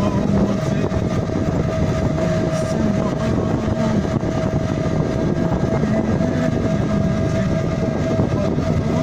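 Electric three-wheeled city-safari rickshaw riding along a road, heard from inside the cab: a steady, loud rattle of the body and frame with road noise, and a steady tone throughout.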